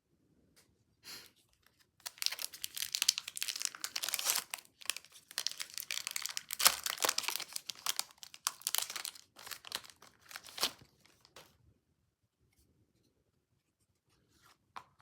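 A trading-card pack wrapper being torn open and crinkled: dense crackling from about two seconds in, stopping about eleven seconds in, with a few light ticks after.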